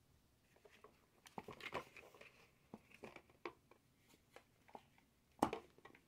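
Faint scattered clicks, rustles and knocks of handling, with one sharper knock about five and a half seconds in.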